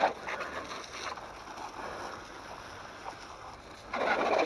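Water spray hissing as it rinses Simple Green degreaser off an RC truck. The spray is softer for most of the stretch and gets loud again near the end.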